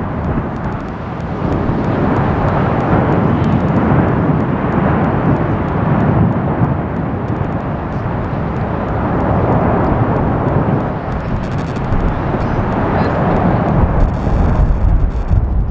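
Rumbling, rushing noise of an erupting volcanic fissure, swelling and easing every few seconds, mixed with wind buffeting the microphone. The low wind rumble grows heavier near the end.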